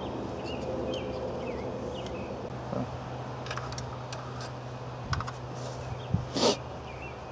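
Scattered light metallic clicks and clinks of hands working among the rocker arms and injector bores of an opened Caterpillar 3126 diesel cylinder head, with a short swish about six and a half seconds in as a shop rag wipes the head. A low steady hum and faint chirps run underneath.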